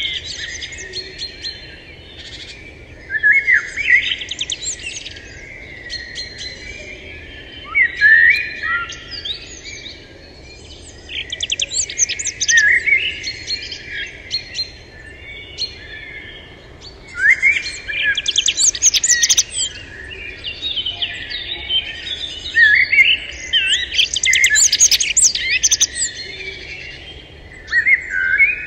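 Songbirds singing: phrases of quick, sweeping high notes every few seconds, with scattered chirps in between, over a faint steady background.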